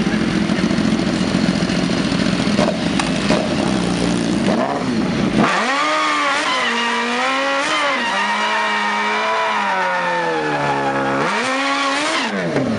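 BMW sport bike engine revving during a burnout, the rear tyre spinning and smoking. A rough, lower rumble for about the first five seconds gives way to a clear, high held engine note that wavers, sags lower for a couple of seconds and rises again near the end.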